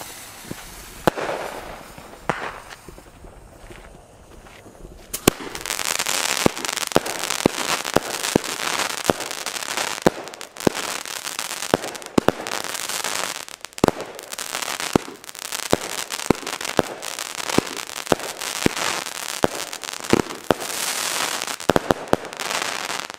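Consumer firework battery going off. The fuse hisses for about five seconds, then the cake fires, with a dense crackle of many sharp pops and bangs that cuts off abruptly at the end.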